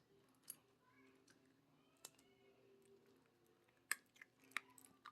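Dog chewing its food: a few faint, scattered crunches and clicks, the two loudest about four seconds in.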